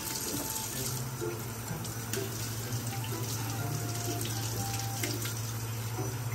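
Kitchen faucet running steadily into a stainless steel sink while a glass is rinsed under the stream. A couple of faint clicks come through, around two seconds in and again about five seconds in.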